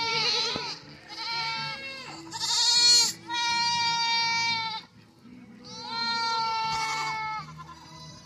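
Goats bleating: a run of long, high-pitched calls one after another, with a short pause about five seconds in. The goats are yelling, which the onlookers put down to wanting food or to a penmate being outside the pen.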